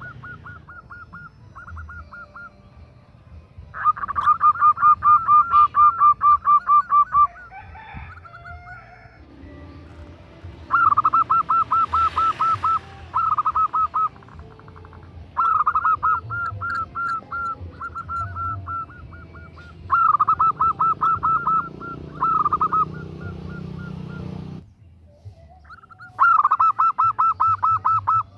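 Female zebra dove (perkutut) calling a male: repeated bouts of rapid, evenly spaced short cooing notes, each bout lasting one to three seconds with short gaps between.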